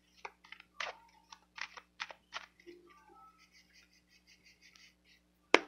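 A deck of tarot cards being shuffled and handled: a run of irregular light clicks and snaps of the card stock, thinning out after a couple of seconds, with one sharper snap near the end.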